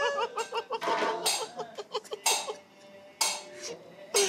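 Kathakali performance music: a sung melodic line that fades out about two seconds in, over sharp percussion strikes at irregular intervals of roughly a second.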